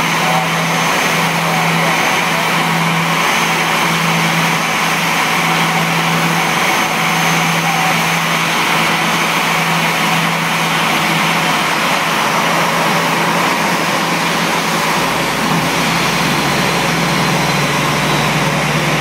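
Aircraft tug towing an Airbus A340-300 by a towbar on its nose gear: a loud, steady mix of engine noise and a thin high whine. A low rumble grows stronger about three-quarters of the way through.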